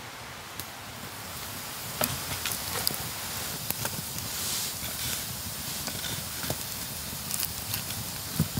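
Wood campfire of dead branches burning, with scattered sharp crackles and pops over a steady hiss.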